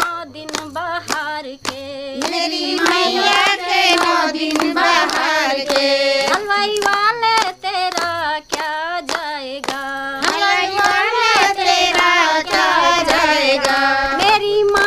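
A woman singing a devotional song to the Mother Goddess, with steady hand clapping, about two claps a second, keeping the beat.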